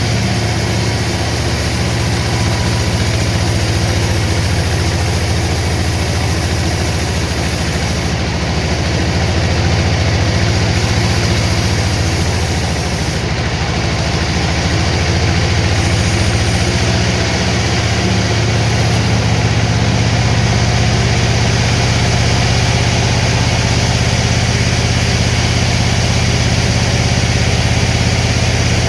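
Sawmill machinery running steadily with a loud, low engine-like hum and no distinct cutting strokes.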